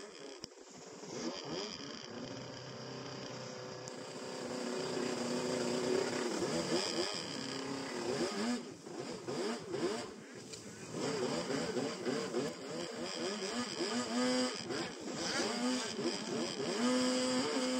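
Two-stroke 850cc stand-up jet ski engine running hard under way. Its pitch rises and falls repeatedly with the throttle, and it briefly backs off a few times.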